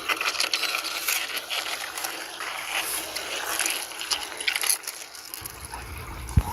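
Rushing water with scattered splashes and scrapes. A low rumble comes in about five seconds in, and a sharp thump follows near the end.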